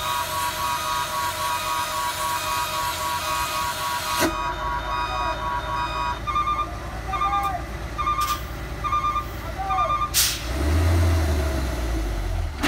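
Heavily loaded diesel cargo truck's reversing alarm sounding, first as a steady tone, then from about halfway in as evenly spaced beeps a little under two a second, with a few short sharp hisses. Near the end the diesel engine revs up hard and labours as the truck pulls away to retry a steep climb it had failed.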